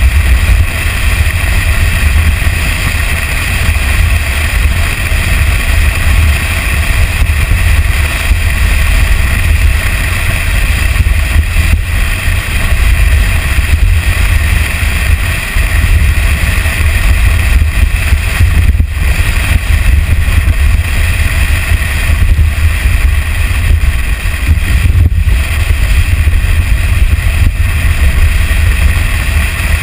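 Toyota Tacoma pickup driving at speed down a sandy dirt trail, recorded by a camera mounted outside on the truck: a loud, steady low rumble of wind on the microphone, engine and tyres.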